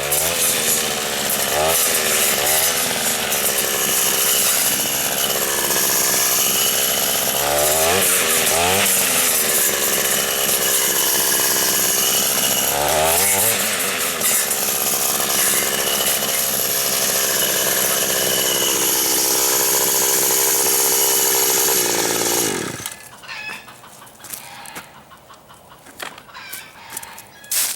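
Two-stroke engine of an Echo string trimmer fitted with a circular saw blade, running at high speed and repeatedly bogging down and revving back up as the blade cuts. The engine stops about 23 seconds in, leaving only faint knocks and rustles.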